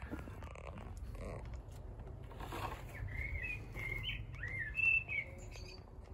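A small bird sings a warbling, chirping phrase about halfway through, over a low steady rumble. Faint scrapes and taps of a slag skimmer working in the furnace crucible come before it.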